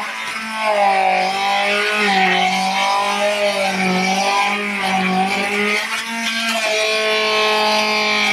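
Electric blender motor whirring as it purees fresh apples, its pitch wavering up and down as the load changes, with a brief dip about six seconds in.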